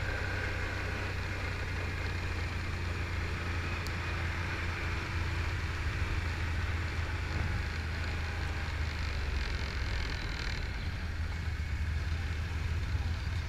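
ATV engines running steadily, a continuous low drone with a hiss over it.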